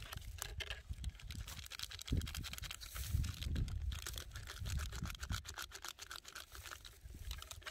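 Food packaging crinkling and rustling as it is handled, a dense run of irregular crackles, over a low rumble.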